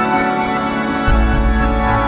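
Background music made of sustained chords; a deep bass note comes in about a second in.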